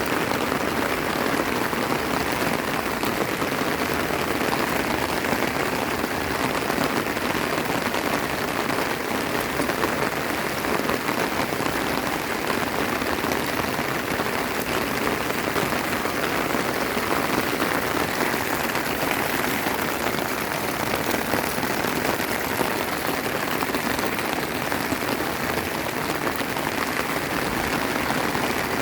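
Steady heavy rain falling, a dense even hiss of drops with no let-up.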